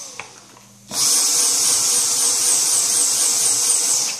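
Cordless stick vacuum's motor running with a high-pitched whine as it sucks the air out of a Mylar bag through its nozzle. It dies away at the start, starts up again about a second in, and cuts off at the very end.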